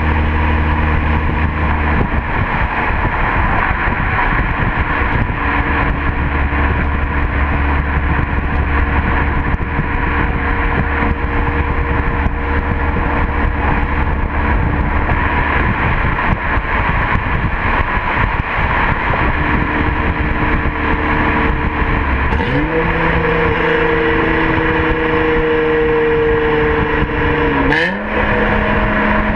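2005 Acura TL's 3.2-litre V6 exhaust, with its mid muffler, resonator and third catalytic converter deleted, heard from outside the moving car. It drones steadily at cruise. About three-quarters through, the revs climb. Near the end there is a brief drop as a gear is shifted, and the revs climb again.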